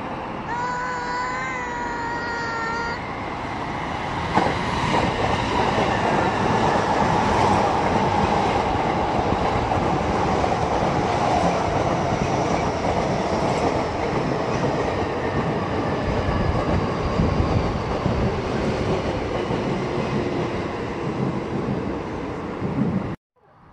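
A JR electric multiple-unit passenger train rolls past close below, with dense wheel-on-rail rumble, rail-joint clatter and a whine that slowly falls in pitch. It starts loud about four seconds in, after a brief wavering tone near the start, and cuts off suddenly near the end.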